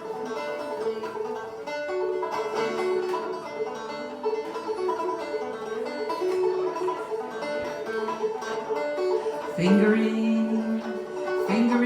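Plucked acoustic string instrument playing an old-time folk tune over a steady drone; about ten seconds in, a voice starts singing.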